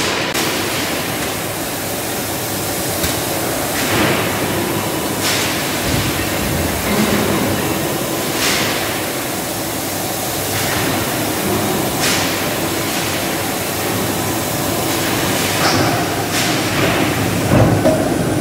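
Hot-forging press line forming red-hot steel bearing-ring blanks: a steady loud industrial din, with short sharp noises every one to two seconds.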